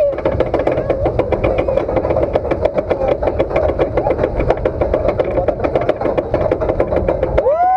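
Alpine coaster sled running down its metal track: a steady rumble with a hum and rapid clicking from the wheels on the rails.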